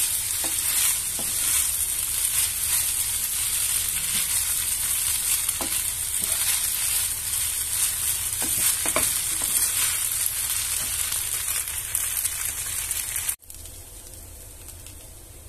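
Rice noodles and vegetables sizzling as they are stir-fried in a nonstick pan, with a wooden spatula scraping and knocking on the pan now and then. The sizzling cuts off suddenly near the end, leaving a much quieter background.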